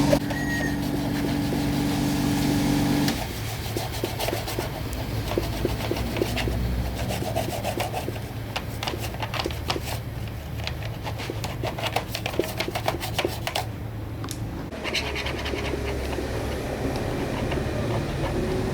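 A steady machine hum cuts off about three seconds in. Hand rubbing and scraping on hard parts follows, with many small irregular clicks and taps.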